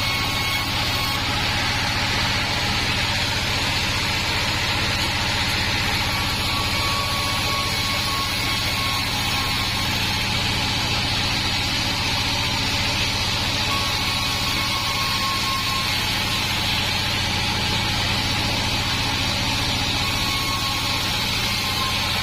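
Sawmill bandsaw machine running steadily, a dense mechanical hum and hiss with a faint thin whine that comes and goes every few seconds.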